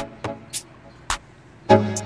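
Background music: short, sharp notes that ring briefly and fade, a few in quick succession.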